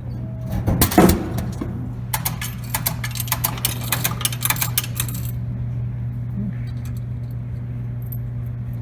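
Coins clinking and jingling as they are handled and fed into a drink vending machine, with a louder knock about a second in, over a steady low hum.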